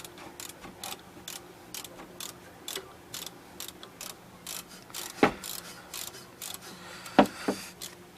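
A 3/8-inch ratchet clicking steadily, about two or three clicks a second, as a 17 mm rear brake caliper bolt is backed out. A few louder metal knocks come a little past halfway and near the end.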